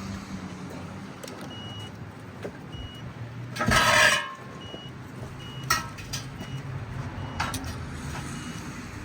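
Short high-pitched beeps from a circuit tester, repeating at uneven intervals as its probe touches fuse terminals. There is a loud scraping rustle about four seconds in and a couple of sharp clicks after it, over a steady low hum.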